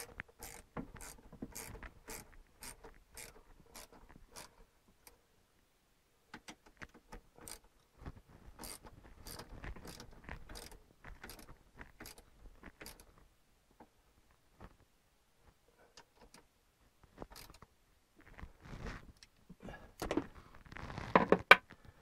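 A socket ratchet clicking in short runs of about three clicks a second as bolts are tightened on the cover of the air-conditioning raw-water strainer, with a louder clatter of tool and parts near the end.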